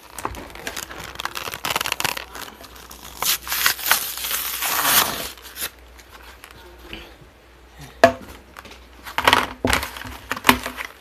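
Tech Deck fingerboard packaging being torn and crinkled open in several rustling bursts over the first half, then three sharp knocks near the end.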